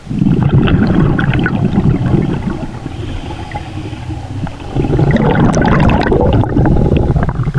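Scuba exhaust bubbles gurgling and crackling past the microphone underwater: two long exhalations, the second starting about five seconds in.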